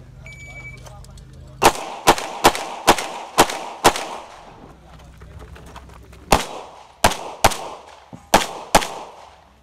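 Shot timer's start beep, then an Open-division 9mm major pistol fired rapidly: six shots in about two seconds, a pause of over two seconds, then six more.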